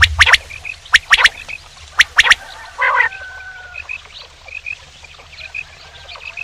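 Male common quail giving its sharp three-note call three times, about a second apart, then a shorter, harsher note just before three seconds in. Faint chirping continues after that.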